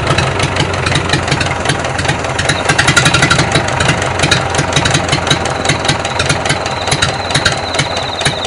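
Small engine of a carrow car running steadily with a rapid, even pulsing beat, with the car being driven.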